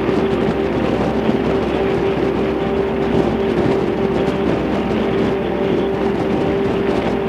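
Harley-Davidson Fat Boy's V-twin engine running steadily at interstate cruising speed, with a constant hum under rushing wind and road noise.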